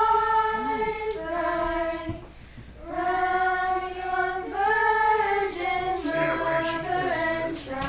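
A group of carolers singing a Christmas carol together in long held notes, with a short pause for breath about two seconds in.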